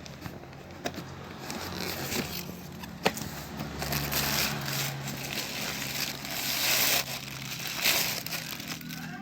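Shoe packaging being handled during unboxing: irregular crinkling and rustling, with a couple of sharp clicks and louder rustles toward the end, over a steady low hum.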